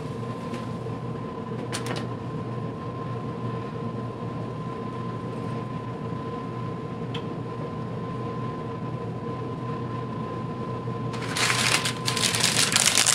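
A steady background hum with a faint high whine, then, about eleven seconds in, the plastic wrapping of a store-bought rolled pie crust being handled and crinkling loudly.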